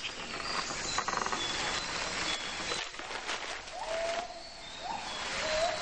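Rainforest ambience: a dense chorus of insects, joined from about four seconds in by a repeated short call that rises and then holds its pitch.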